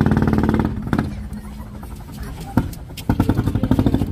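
Small boat engine of a wooden outrigger boat chugging with a rapid, even beat, loud at first, dropping back under a second in and picking up again about three seconds in. A single sharp knock about two and a half seconds in.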